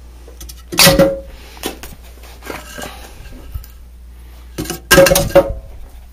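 Split firewood being loaded into the metal fuel chamber of a wood-fired gasifier boiler: pieces clunk and clatter against the metal and each other. There are two loud clunks, about a second in and about five seconds in, with lighter knocks between.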